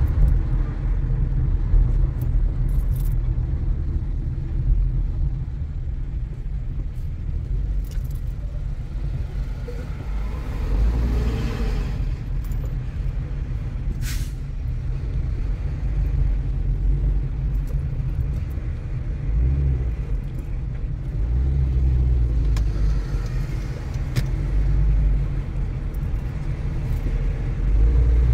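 Car driving: a steady low rumble of engine and tyres on the road, with a swish near the middle and one sharp click a couple of seconds after it.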